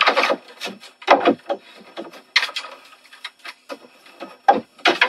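Computer keyboard being hammered with the hands: an irregular clatter of key strikes and knocks, with a few harder bangs about a second in and again near the end.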